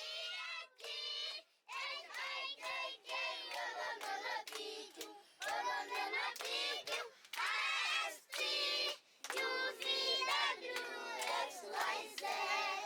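A group of children singing together in high voices, in short chanted phrases with brief pauses between them.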